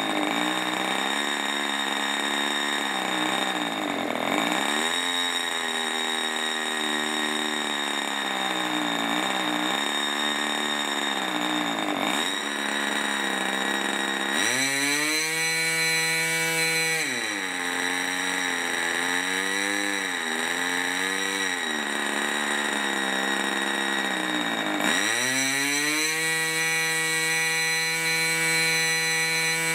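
HP 20 two-stroke glow engine swinging a 9x5 prop on a test stand, running at low throttle with an unsteady, wavering speed, then opened up to a high steady pitch about halfway through, throttled back, and opened up again near the end. The owner finds it does not like idling, and puts this down to air being drawn in through its front bearing.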